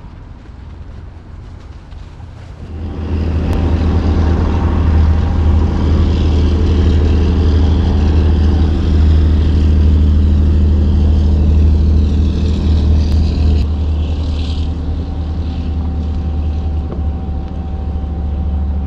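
Small motorboat's engine running as the boat passes close by. It comes in loud about three seconds in, holds a steady pitch and eases slightly near the end.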